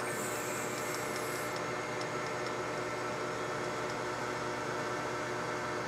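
Metal lathe running steadily with a hum of many even tones, as a small drill bit held in the tailstock chuck bores a 3 mm hole through the spinning workpiece. A high hiss sounds for the first second and a half, with faint light ticks throughout.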